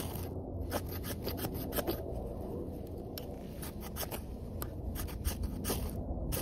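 Irregular rubbing and scraping with many small sharp clicks, over a steady low rumble.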